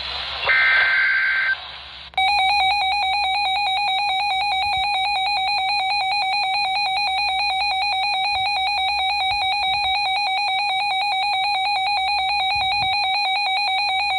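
A weather radio receiver's alert: a one-second burst of two-tone digital data (the SAME header that triggers the alarm), then a loud electronic alarm tone warbling rapidly between two pitches for about twelve seconds, signalling an incoming severe thunderstorm warning.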